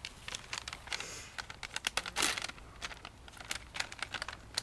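Plastic packaging crinkling and rustling as it is handled, an irregular run of sharp crackles with one louder rustle about two seconds in.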